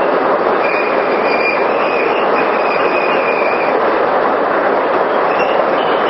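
Micro-hydro water turbine machine running, with water rushing through it: a loud, steady rushing noise. A faint high whine comes and goes over it.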